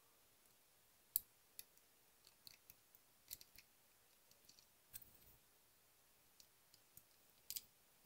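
Faint, scattered clicks and ticks of small plastic model parts being handled while a tiny screw is fitted into the rear wheel and swingarm of a plastic model motorcycle kit, the sharpest click about a second in, otherwise near silence.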